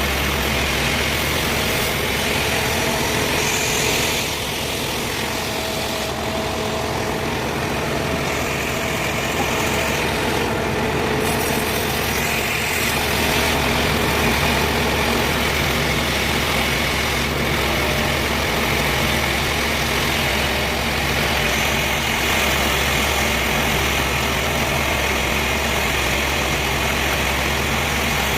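An engine running steadily at an even speed, a constant drone with no revving or cutting bursts.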